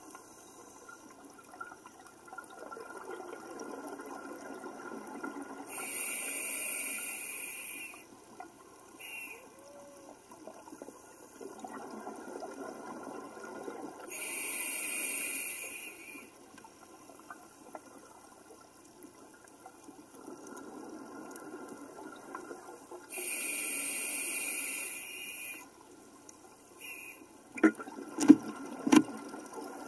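Scuba diver breathing through a regulator underwater: rumbling bubbly exhalations alternating with hissing inhalations, three breaths in all, about eight to nine seconds apart. A few sharp knocks come near the end.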